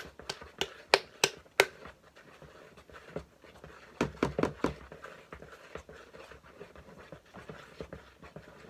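Nearly empty squeeze bottle of gold glitter glue sputtering and popping as air and the last glue are forced out: a run of sharp pops, then a quick cluster of them about four seconds in.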